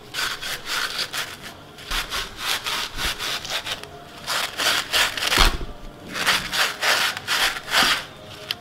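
A scrub pad with dish gel rubbing hard over the mesh of a soot-blackened steel tea strainer. It makes quick rasping strokes, several a second, with a couple of short pauses, as it scours off the residue burnt on over the gas flame.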